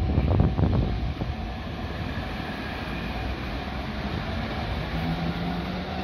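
Electric train running past on the tracks below, a steady rumble that is louder in the first second.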